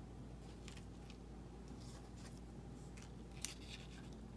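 Faint rustling of small die-cut paper pieces being handled and pressed onto a card, with one sharp tap about three and a half seconds in, over a steady low hum.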